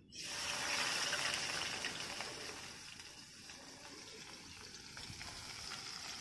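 Onion paste sizzling as it is tipped into hot oil in a metal kadai: a sudden hiss that eases off over a few seconds and then builds again.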